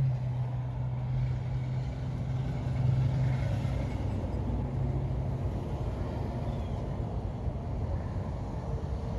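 Low, steady rumble of a running engine, with a steady hum that drops away about five and a half seconds in.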